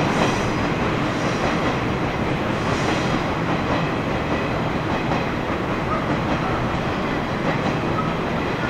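JR East 115 series electric multiple unit pulling away, its wheels running over the rails and points.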